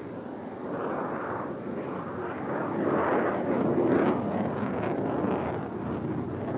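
Sukhoi Su-27's twin AL-31F turbofan jet engines running as the fighter recovers from a tail slide, still running without stalling. The jet noise rises and falls and is loudest about three to four seconds in.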